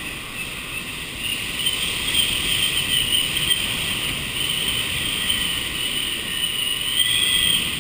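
Typhoon-force wind rushing steadily past the building, with a high, wavering whistle that grows stronger a couple of seconds in and peaks near the end.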